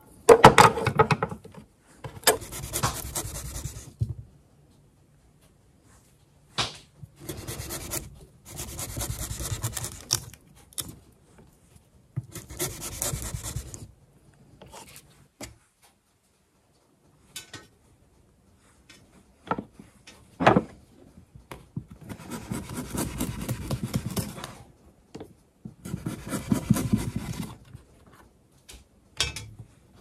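Bouts of rough scraping, each lasting one to two seconds, with a few sharp knocks between them.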